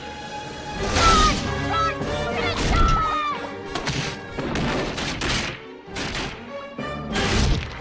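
Dramatic film music broken by about five loud crashing impacts, spread through the passage, with the loudest near the start and near the end.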